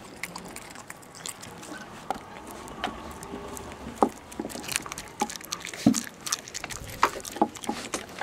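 Landseer Newfoundland puppy gnawing a raw chicken leg, wet chewing with sharp crunches, sparse at first and coming faster and louder about halfway through.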